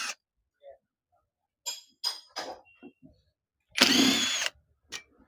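Two screws being undone from a battery sprayer pump's motor mounting: a few light clicks and scrapes of the tool on the pump, then one loud, brief whirring burst about four seconds in.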